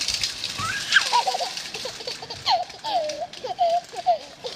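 A toddler laughing in a string of short, high bursts, starting with a rising squeal about a second in.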